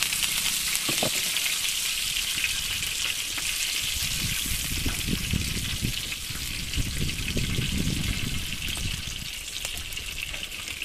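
Salted dried croaker frying in hot oil in a pan: a steady sizzle, with wind rumbling on the microphone underneath.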